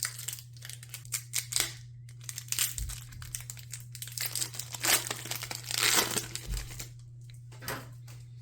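Foil wrapper of a Pokémon TCG booster pack crinkling and tearing as it is opened by hand, in an irregular run of crackles that dies down about seven seconds in. A steady low hum runs underneath.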